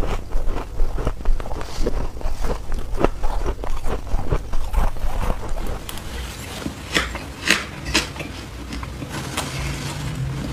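Soft shaved ice being chewed: a quick, dense run of soft crunches that thins out about six seconds in to a few sharper crunches.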